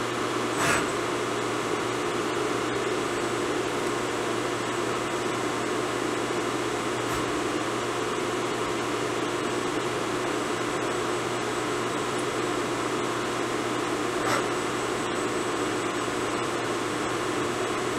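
CNC vertical milling machine running a touch-probe cycle: a steady hum and whir from the machine's fans and axis drives. Two faint clicks, one just after the start and one near the end.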